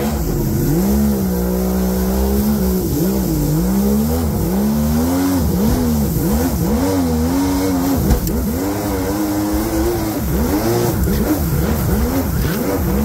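Two-cylinder two-stroke engine of a mini jetboat running hard, its pitch held steady for a moment and then rising and falling again and again as the throttle is worked. A brief thump about eight seconds in.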